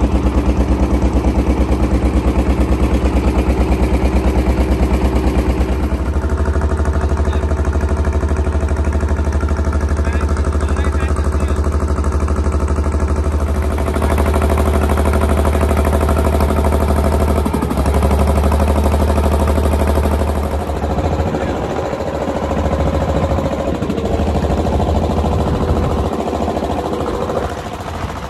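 Wooden boat's engine running steadily under way, a deep continuous hum with a rush of water along the hull. Its pitch and level change a few times, at about 6, 14 and 21 seconds in.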